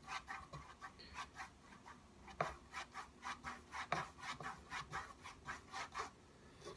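Paintbrush scrubbing oil paint onto a canvas in quick short strokes, about four a second, that stop near the end.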